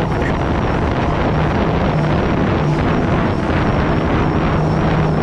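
Bass boat's outboard motor running steadily at speed across open water, a low engine hum under heavy wind buffeting the microphone and water rushing off the hull.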